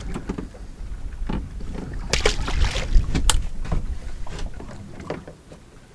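Wind rumbling on the microphone in a small open boat, with a rush of noise and several sharp knocks and rattles of gear being handled in the hull, loudest about two to three and a half seconds in.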